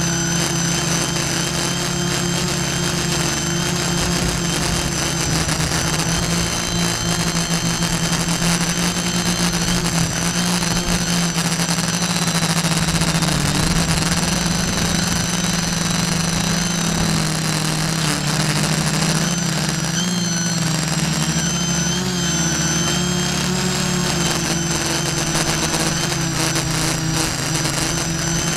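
Multirotor drone's electric motors and propellers buzzing steadily in flight, heard up close from the camera mounted on the drone itself; the whine wavers slightly in pitch about two-thirds of the way through as the drone manoeuvres.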